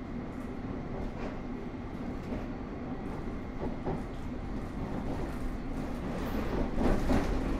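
London Underground S7 stock (Bombardier Movia) train running between stations, heard from inside the car: a steady rumble of wheels on the rails that grows louder near the end.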